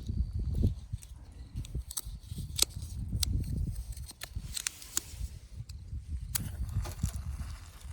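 Wood campfire crackling, with several sharp pops scattered through, over an uneven low rumble.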